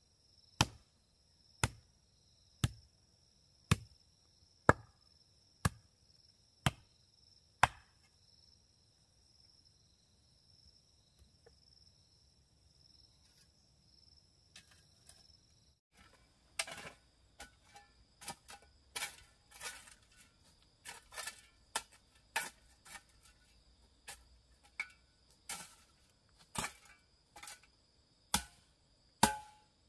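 Sharp, evenly spaced strikes of a hand tool, about one a second, over a steady high insect drone; the strikes stop about eight seconds in. About halfway through, a run of quicker, irregular knocks and clicks takes over.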